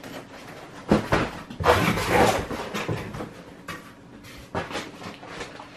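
Cardboard boxes being handled and set down: a sharp knock about a second in, a rustling scrape just after, then a few lighter knocks.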